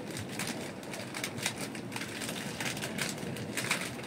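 Plastic coffee sachet crinkling as it is handled, a run of irregular small crackles over a steady background rush.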